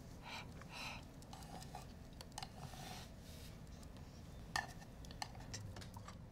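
Quiet room tone with scattered faint clicks and light clinks of tableware at a dinner table, the sharpest a little past halfway.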